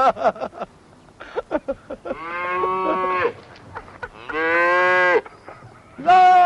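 A cow mooing: two long moos of about a second each, then a third starting just before the end.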